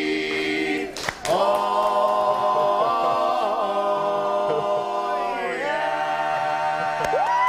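Barbershop quartet of male voices singing a cappella, holding long sustained chords at the close of the song. A brief break comes about a second in, and the quartet moves to a new chord near the middle and again later on. In the last chord a top voice slides up and down over the held harmony.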